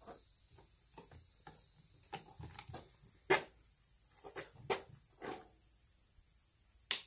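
Two sharp gunshot cracks at a shooting range, about three and a half seconds apart, with fainter clicks and knocks in between.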